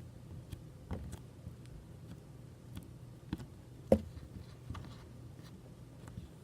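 Scattered small clicks and taps from a slime being handled in its tub, with one sharper click about four seconds in, over a faint steady low hum.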